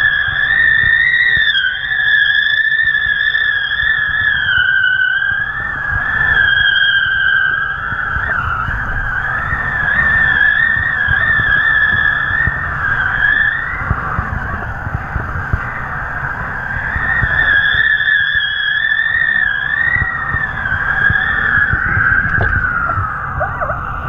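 A high whistling tone that wavers up and down in pitch, from kite lines singing in the wind, over a low wind rumble on the camera.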